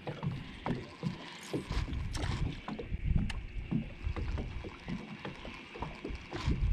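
Water lapping and slapping irregularly against a small fishing boat's hull, with scattered light knocks and clicks.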